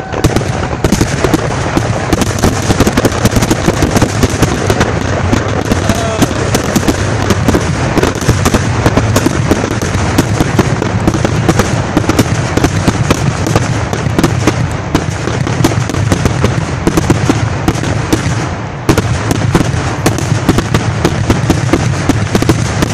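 Fireworks finale barrage: a dense, continuous run of rapid shell bursts and crackling, loud throughout, with a brief lull about three quarters of the way through before it picks up again.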